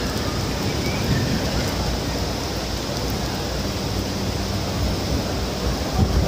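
Heavy rain pouring down as a steady, even hiss, with wind rumbling on the microphone.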